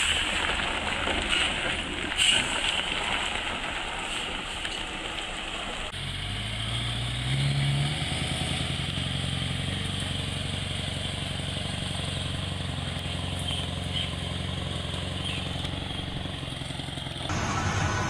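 Logging truck's diesel engine under load: a noisy rumble at first, then about six seconds in a low, steady engine drone that rises briefly and holds. The sound changes abruptly near the end.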